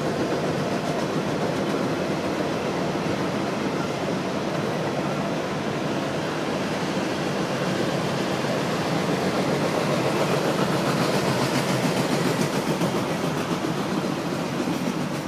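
Empty autorack car carriers of a freight train rolling past with a steady rumble of wheels on rail. It grows a little louder and brighter about two-thirds of the way through.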